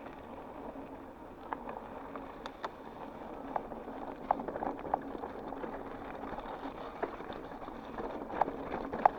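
Mountain bike rolling over a rough dirt trail: steady tyre noise with scattered clicks and rattles from the bike.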